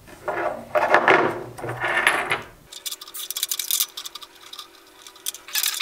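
Handling noises of small plastic parts, then from about three seconds in a nylon zip tie being pulled tight through its ratchet head, a rapid run of fine clicks.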